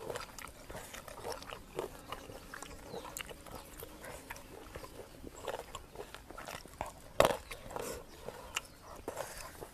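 A person chewing food close to a clip-on microphone: soft, wet mouth clicks and small crunches, with one sharper click or tap about seven seconds in.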